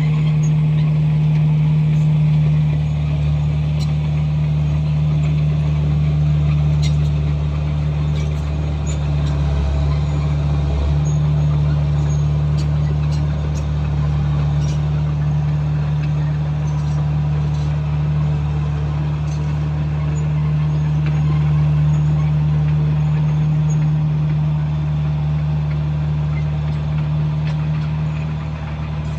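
Komatsu bulldozer's diesel engine running steadily at working speed, a deep continuous drone, with its note shifting briefly about ten seconds in.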